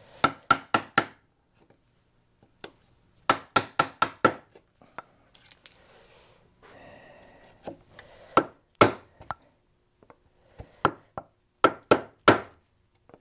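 Round wooden mallet striking a 5/8-inch bench chisel, chopping waste out of 7/8-inch mahogany: sharp knocks in quick runs of four or five, about four a second, with a few single blows between.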